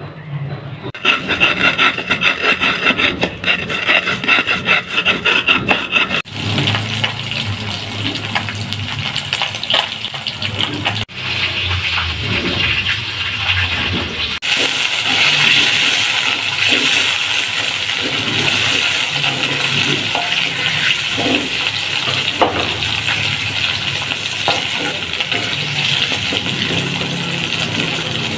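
Hot oil sizzling steadily in a wok as shallots, chilies and tomatoes fry for sambal, starting about halfway through. Before that, several seconds of rhythmic scraping strokes.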